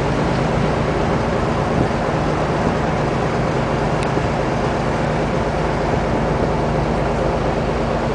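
Engine of a small river tour boat running steadily while under way, a constant low hum.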